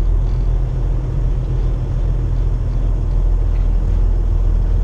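Steady low diesel drone of a 2015 Kenworth T680's engine heard inside the cab, running at low speed as the truck creeps along in stop-and-go traffic.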